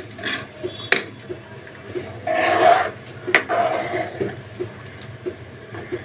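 A spoon stirring gravy in a steel kadhai, scraping along the pan with a few sharp clinks against the metal; the longest scrape comes about two and a half seconds in.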